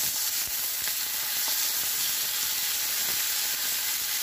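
Thin strip loin steaks sizzling steadily in hot oil in a non-stick frying pan, with a few faint clicks as a fork turns them over.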